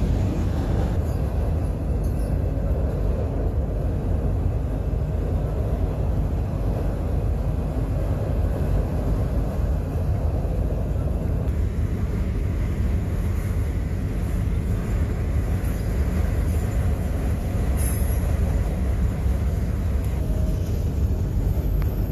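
A train rolling past, its railcars making a steady low rumble.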